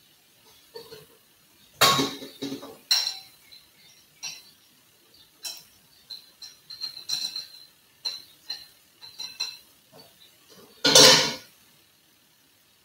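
Dishes and cutlery clinking and clattering in a string of irregular knocks, with two louder clatters about two seconds in and near the end.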